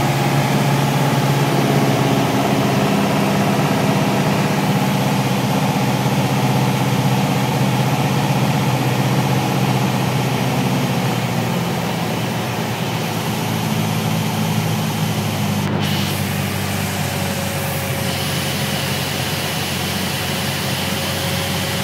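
Piper light aircraft's engine and propeller droning steadily inside the cockpit on final approach to landing, easing slightly about halfway through.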